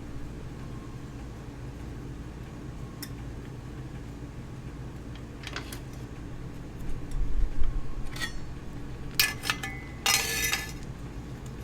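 Sharp metal clicks and clinks of a push-pin chain tool and drive-chain parts being worked and handled while the master link is taken out of a motorcycle chain, with a dull thump about halfway and a run of clinks near the end, over a steady low hum.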